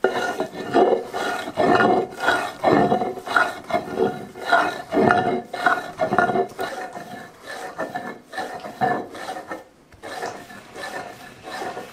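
Stone roller grinding cacao against a stone slab, rubbed back and forth by hand: a rough, grating stone-on-stone scrape, about two strokes a second. The strokes grow weaker in the second half.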